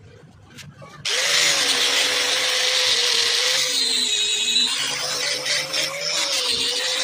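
Electric angle grinder with a sanding disc switching on about a second in and running steadily, sanding the face of a coconut-wood cricket bat. Its motor whine wavers slightly over a loud rasping hiss.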